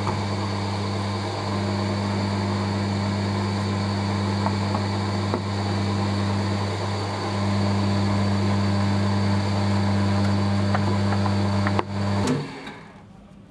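An electric motor running with a steady low hum and a few faint clicks, switched off about twelve seconds in.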